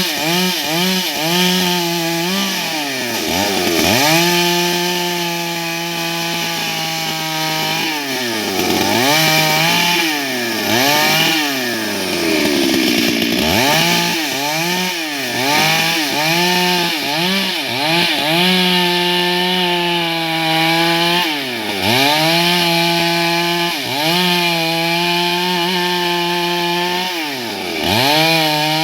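Stihl MS 382 two-stroke chainsaw at high revs while cutting wood, the engine pitch wobbling quickly at first, then held steady for long stretches and sagging and climbing back up several times as the throttle and load change.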